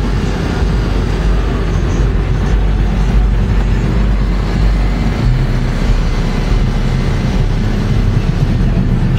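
Cars rolling slowly past close by with their engines running, under a loud, steady low rumble.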